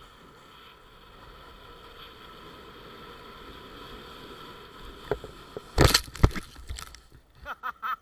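Snowboard sliding over snow with a steady hiss, then a burst of loud knocks and scrapes about five to seven seconds in. Short bursts of a person's voice follow near the end.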